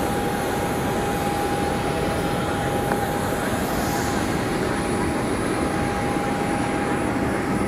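Jet airliner running on the apron: a steady roar with a steady high whine.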